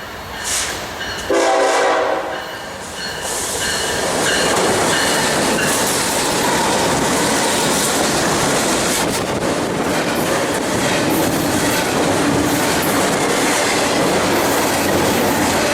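BNSF double-stack freight train passing: a short locomotive horn blast about a second in, then the steady noise of the container cars rolling by on the rails.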